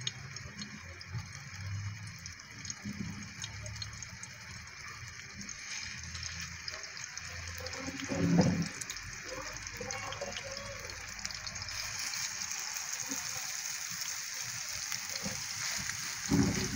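Beef mince burger patties sizzling in shallow oil in a frying pan over medium heat, the sizzle growing louder about six and twelve seconds in as more patties go in. A thump about eight seconds in.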